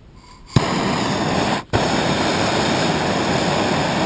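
Gas blowtorch lit for the furnace: a sharp pop about half a second in, then a steady rushing burn. It drops out for a split second about a second later and comes straight back.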